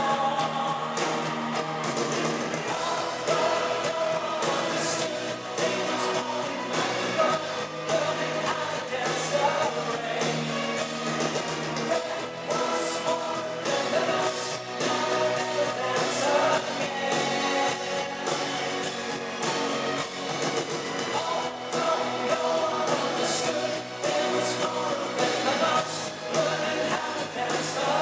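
Live pop-rock band music with singing throughout.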